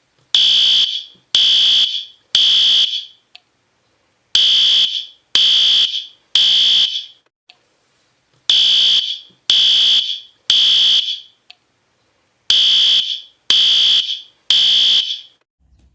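Fire alarm sounder beeping a high-pitched tone in groups of three, about a second apart, with a pause after each group, repeated four times. This is the temporal-three evacuation pattern that signals a fire alarm.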